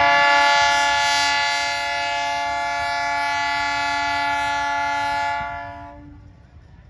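Indian Railways MEMU train's horn sounding one long, steady blast that fades away about five and a half seconds in.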